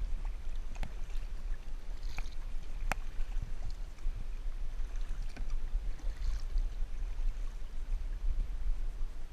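Water lapping and splashing around a kayak under way, with a few sharp knocks, the clearest about three seconds in, over a steady low rumble.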